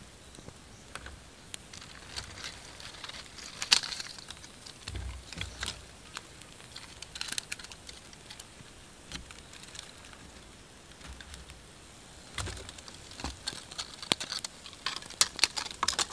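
Small wood fire of dry sticks crackling, with irregular sharp pops and snaps that come in clusters, thickest about four seconds in and near the end.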